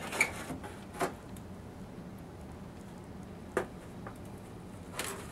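A few light knocks and clicks from the plastic top cover of a TRS-80 Model 4D, CRT attached, as it is lifted off the chassis and handled.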